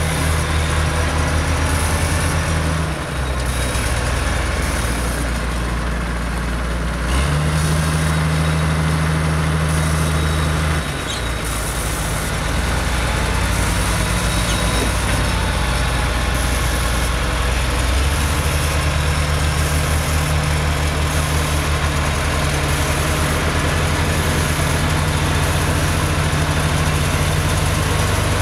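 Caterpillar 938 wheel loader's diesel engine running while the machine works dirt: a deep, steady engine note that shifts abruptly several times.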